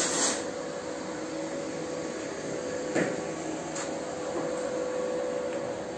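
Steady electric motor hum with a high whine, from workshop machinery. A brief hiss right at the start and a single knock about three seconds in.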